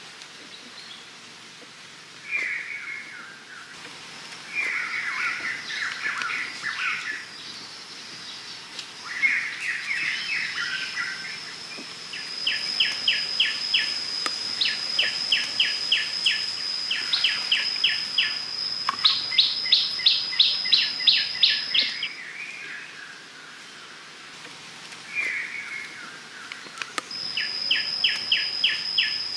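Forest birds chirping and singing in short warbling phrases over a steady high-pitched insect drone. From about the middle on, quick runs of evenly spaced chirps join in.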